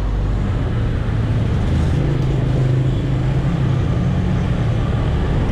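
Large city bus engine running close by in street traffic: a steady low drone that swells over the first two seconds and then holds.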